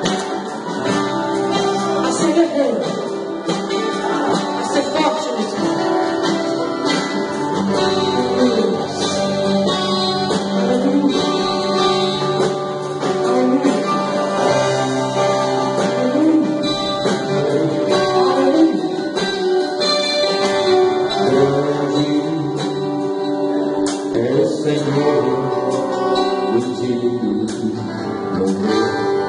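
Live gospel worship band playing a song: guitars and a drum kit with cymbals under a singing voice.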